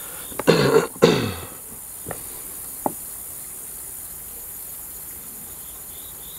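A man's short vocal sound, falling in pitch, about half a second in, then two faint clicks and a steady background hiss. Faint, regular insect chirping, about three chirps a second, becomes clear near the end.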